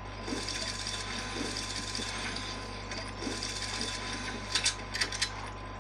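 Rustling and handling noise with a faint steady tone, then a quick run of clicks a little past four seconds in.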